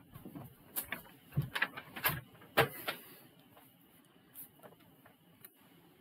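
A string of sharp clicks and knocks from something being handled close to the microphone, loudest about two and a half seconds in, then a few fainter ones.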